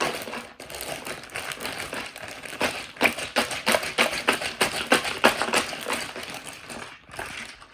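A plastic bag of ice and salt, with a smaller sealed bag of milk mixture inside, being shaken and squeezed by hand to make ice cream: ice rattling and plastic crinkling in fast, irregular clicks, busiest in the middle.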